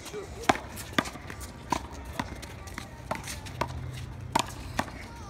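A rubber handball being struck and bouncing off the wall and the pavement during a one-wall handball rally: a series of sharp, irregularly spaced smacks.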